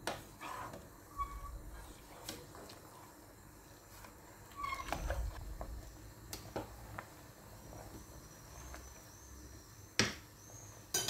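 Rice being stirred in a large steel pot of boiling water, with a few sharp knocks of the spoon against the pot over a low, steady background. A few short, faint squeaks are also heard.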